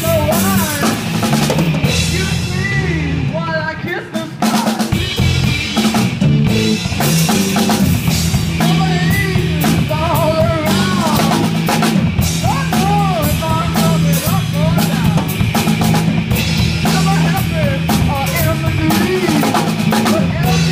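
A live rock band plays loud and unbroken on a drum kit, distorted electric guitars and electric bass. A singer's voice comes through over small amplifiers.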